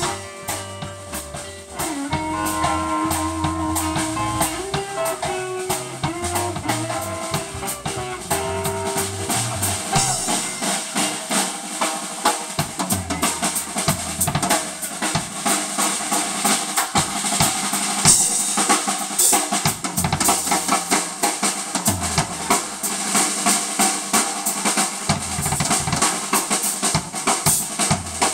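Live blues band: electric guitar and bass lines over a drum kit for about ten seconds, then the drums play on largely alone, with snare hits, rimshots and rolls.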